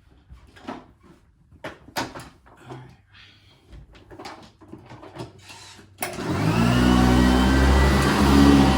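A few light clicks and knocks, then about six seconds in a vacuum cleaner switches on, its motor spinning up and then running steadily.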